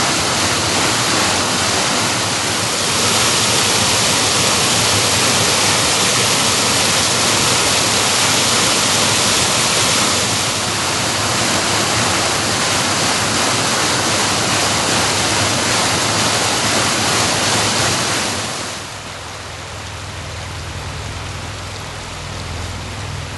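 Small waterfall pouring over a rock ledge into a stream, a loud steady rush of falling water. About three quarters of the way through it drops to the softer running of the shallow rocky stream below the falls.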